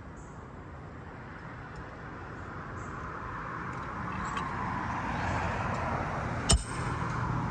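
Road noise of a passing vehicle swelling steadily over several seconds. Near the end comes one sharp knock, a hammer striking a roofing nail.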